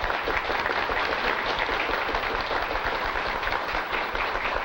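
Audience applauding: a dense, steady clatter of many hands clapping, fading near the end.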